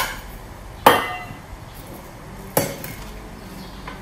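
Metal spoon knocking against the rim of a bowl to shake off flour: a sharp clink with a brief ring about a second in, another about 2.6 s in, and a faint tap near the end.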